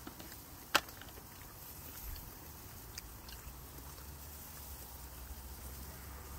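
Low steady hum with one sharp click about a second in, then a few faint small taps.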